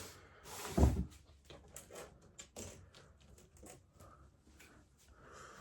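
Handling noise: a brief rustle, then a heavy thump about a second in, followed by scattered light clicks and rustling.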